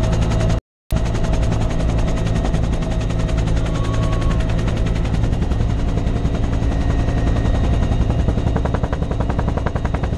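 Helicopter rotor blades chopping with a rapid, even thudding over a steady engine drone, heard from inside the cabin with the side door open in flight. The sound cuts out for a split second near the start.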